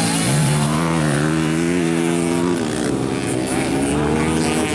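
Dirt-bike engines revving and running hard as motocross bikes race past, their pitch rising and falling.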